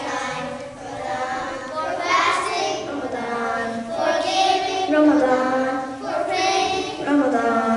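A group of children singing together, in phrases with held notes.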